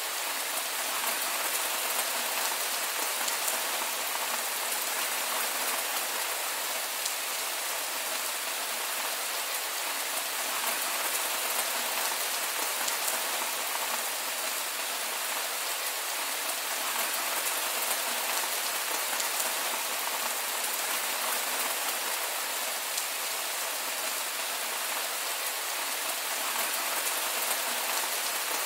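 Heavy rain falling steadily: an even hiss with the fine patter of drops.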